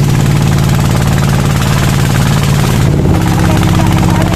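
Small riverboat's engine running steadily under way, with a steady rush of water, wind and rain over it. The engine note shifts slightly about three seconds in.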